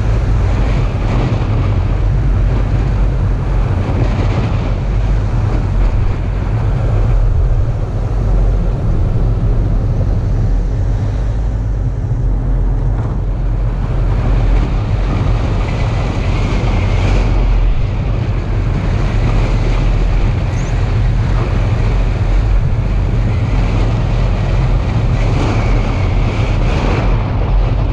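Wind buffeting a hood-mounted GoPro on a moving Honda Civic: a steady, loud low rumble with road and tyre noise beneath.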